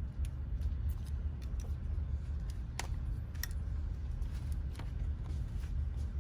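A few sharp small clicks and taps from laptop parts and flex-cable connectors being handled and snapped into place, the clearest two about halfway through, over a steady low hum.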